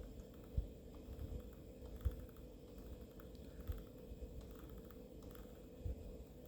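Faint, scattered clicks and a few soft low thumps from a computer mouse as CT images are scrolled through, over a steady electrical hum.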